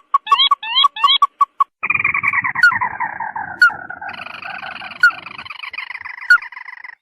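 Recorded crake call used as a bird lure. It opens with a run of short, evenly spaced notes and quick rising whistles. About two seconds in, a long, dense chattering trill starts; it slides down in pitch, steps up near the middle and carries on to the end.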